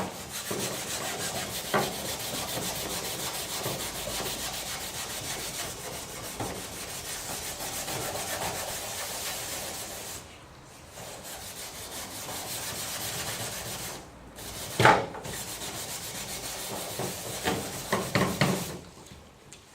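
Scouring sponge scrubbed on stained white plastic, a steady rubbing to lift the dirt worked loose by a cleaning product. The rubbing breaks off briefly twice, with a sharp knock about fifteen seconds in and a few light knocks near the end.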